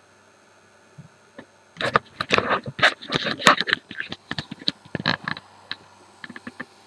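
Handling noise from the recording phone being moved: a dense run of sharp knocks and scrapes for about four seconds from about two seconds in, then a few light ticks near the end, over a faint steady hum.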